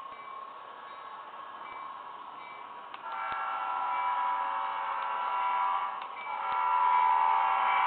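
HO-scale model diesel locomotive sounding a multi-note chime horn: faint at first, then a long blast about three seconds in and a second, louder blast from about six seconds in as the train approaches. There are a few sharp clicks from the wheels on the plastic track.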